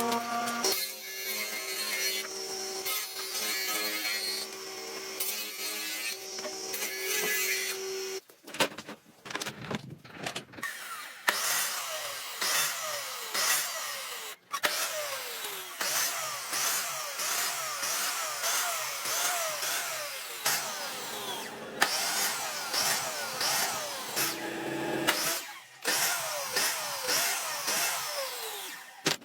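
Power tools working wood in a string of short cut-together clips: first a steady machine tone, then after several abrupt cuts a run of repeated falling whines.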